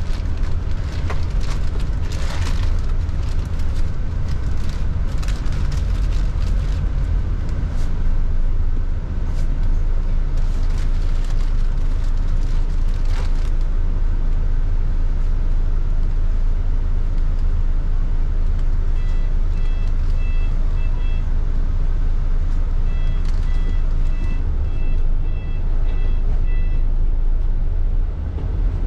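Steady low engine and road drone inside a moving bus, with clicks and rattles through the first half. In the last third a high electronic beep repeats about twice a second, in two short runs.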